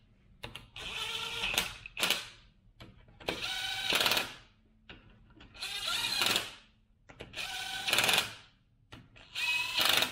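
DeWalt cordless driver with a socket spinning the differential cover bolts down one after another, in about six short runs of under a second each with pauses between.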